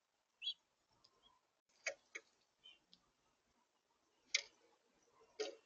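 Birds at a seed feeder: one short high chirp about half a second in, then a few sharp clicks and taps, the loudest just past the middle and another near the end, like bills pecking and seeds being handled on the feeder.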